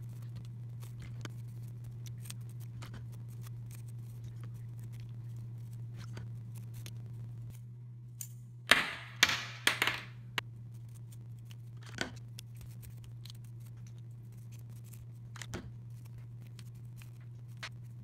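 Toothbrush bristles scrubbing hard plastic Rubik's cube pieces, loudest in a quick run of scraping strokes about nine seconds in. Scattered light plastic clicks come from the pieces being handled. A steady low hum runs underneath.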